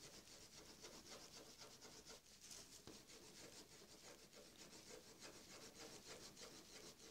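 Faint scratching of a colored pencil shading on paper in many quick, short strokes.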